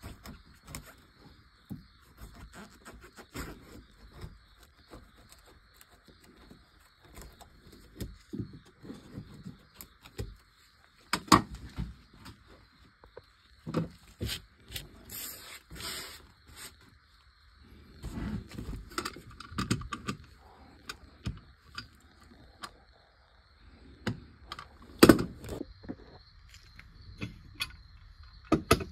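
Scattered taps, scrapes and clicks of hand work at a bench: a wood chisel paring a recess out of a wooden block, and the metal toy tractor body being handled and set down on the wood. A few sharp knocks stand out, with a brief scraping hiss midway, over a faint steady hum.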